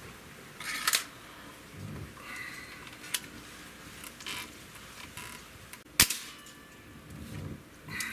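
Hatsan 125 Sniper break-barrel gas-piston air rifle in .22 being cocked and loaded, with a few metallic clacks and clicks in the first seconds. About six seconds in it fires once, a single sharp crack that is the loudest sound. Near the end comes another clatter as the barrel is broken again.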